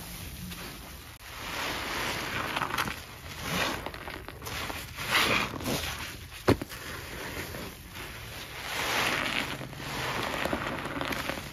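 Rubber-gloved hands squeezing and stirring a foamy paste of Ajax powder cleanser in a bowl: swells of wet squishing noise come and go every second or two. There is one sharp click about six and a half seconds in.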